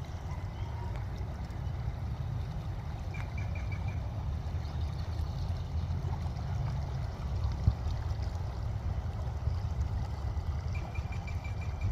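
Fast-flowing creek water rushing steadily, with a deep low rumble. A short, rapid high-pitched trill is heard twice, about three seconds in and near the end.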